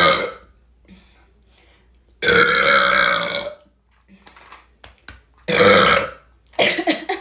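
A woman burping loudly after gulping carbonated Sprite, several burps in a row. A long drawn-out burp comes about two seconds in and lasts over a second, another follows about five and a half seconds in, and a shorter broken one comes near the end.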